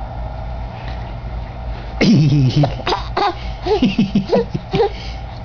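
Laughter in a run of short, choppy bursts, starting with a loud outburst about two seconds in, over a steady low background hum.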